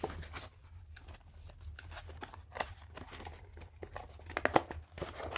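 Packaging being handled during an unboxing: rustling and crinkling with scattered clicks and light knocks, a few louder knocks about four and a half seconds in and near the end.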